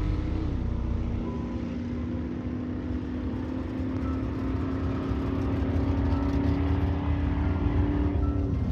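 A car engine running at steady revs, its pitch dipping slightly about half a second in, then holding steady until it falls away near the end.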